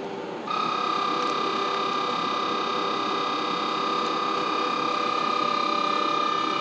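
Electric locomotive moving off slowly, its traction electronics giving a steady whine of several held tones that sets in about half a second in, over a hiss of running noise.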